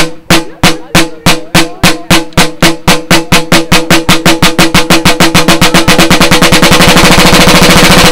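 Single-stroke roll on a rope-tension snare drum with skin heads, one note from each stick in turn. It starts at slow, separate strokes of about two and a half a second and speeds up steadily into a fast continuous roll near the end.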